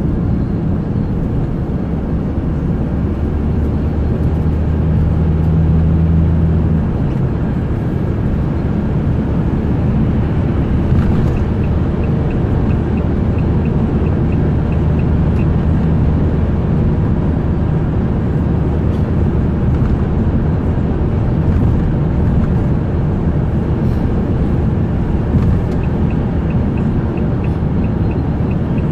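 Ambulance engine and tyre noise at highway speed heard from inside the cab, a steady drone that swells slightly a few seconds in. A faint regular ticking, about three a second, comes in for a few seconds around the middle and again near the end.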